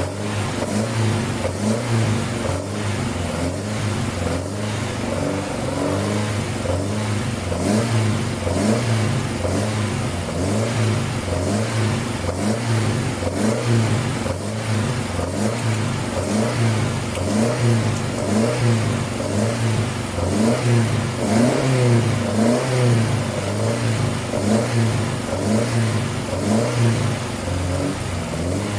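1985 Mitsubishi Sigma's Astron 2000 four-cylinder engine running and being revved up and down over and over, freshly started after a rebuild with the distributor and timing newly set.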